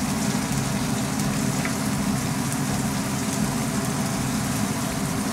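Tacos frying on an oiled flat-top griddle, a steady sizzle, over a steady low mechanical hum.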